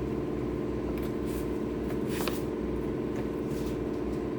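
A few soft, brief sanding strokes on cured epoxy pour fill, over a steady hum that runs throughout.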